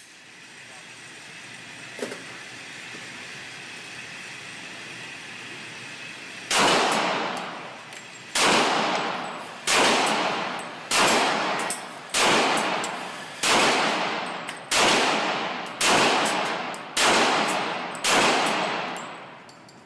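A .40 S&W Glock 35 pistol fired about ten times at a steady pace, a little over a second apart, starting about six seconds in; each shot echoes with a long fading tail.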